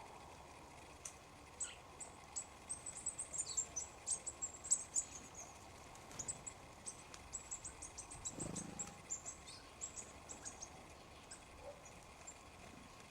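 Small wild birds feeding and calling with many rapid, high, short chirps, in two spells of busy calling. There is a short low sound about eight seconds in.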